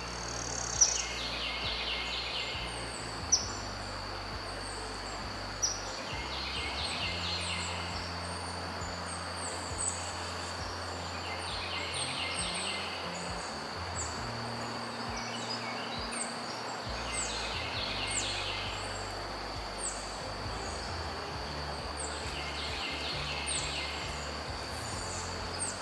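Riverside ambience: the steady rush of the flowing river under a steady high insect drone. Birds sing throughout, one repeating a short patterned phrase about every five seconds. A few sharp clicks come in the first six seconds.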